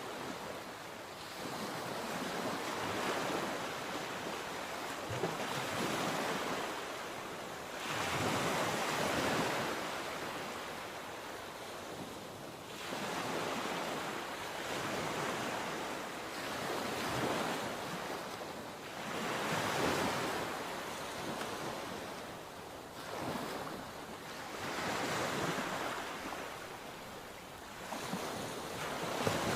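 Sea waves breaking and washing on the shore, each surge swelling and fading every few seconds, with some wind noise on the microphone.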